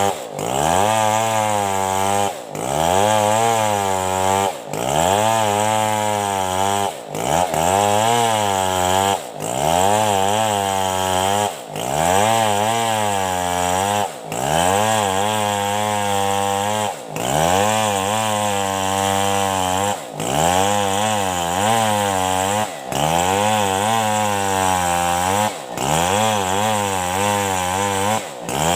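Two-stroke chainsaw ripping lengthwise through a coconut trunk under steady load. Its engine pitch sags and recovers over and over, with a brief drop in level every two to three seconds.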